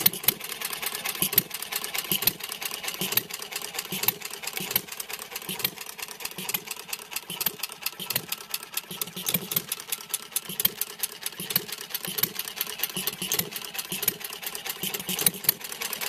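A 1/3-scale Red Wing air-cooled four-stroke hit-and-miss model engine running. A fast, steady mechanical clatter carries on throughout, with a louder sharp firing stroke about once a second.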